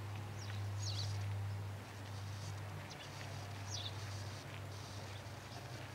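Outdoor ambience with short high bird chirps, two clearer ones about a second in and near four seconds, over a steady low hum.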